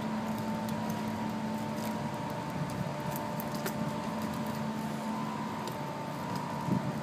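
A steady machine hum with two held tones, one low and one higher, over a noise bed, with a few faint clicks.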